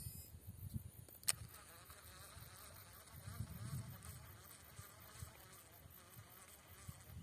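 Faint buzzing of a flying insect, wavering on and off, over irregular low thumps, with one sharp click just over a second in.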